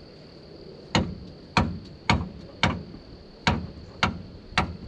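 A hammer striking the truck's steel steering linkage, seven sharp metallic blows about two a second, starting about a second in, to shock a stuck tapered joint loose.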